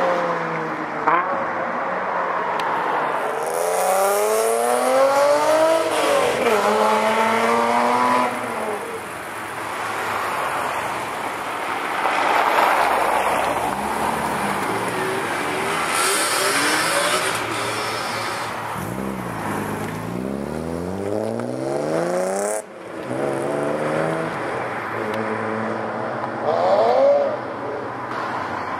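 High-performance sports car engines revving and accelerating hard, several times over. Each run rises steeply in pitch through the gears and then falls away, and one cuts off abruptly about two-thirds of the way through.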